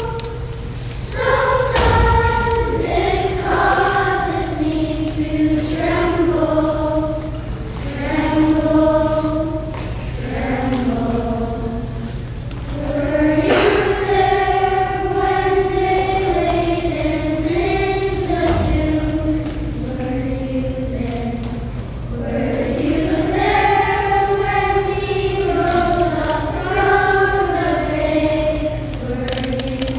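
Children's choir singing together in one melodic line, a slow tune of held notes. Two brief low thumps, about two seconds in and again past the middle.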